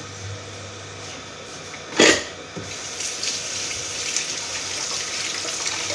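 A knock about two seconds in, then a kitchen tap running steadily into the sink.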